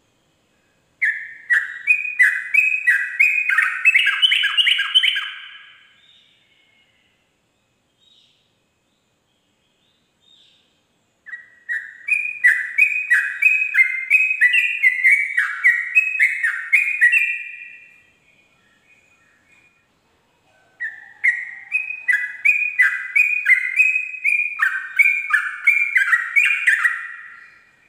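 Yellow-vented bulbul singing its long, rapid 'ropel' song: three bouts of quick, bubbling notes, each lasting about five to seven seconds, with pauses of a few seconds between them.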